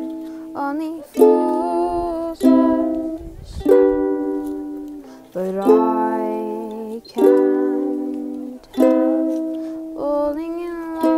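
A ukulele strummed slowly, a chord about every second and a half, each left to ring out and fade.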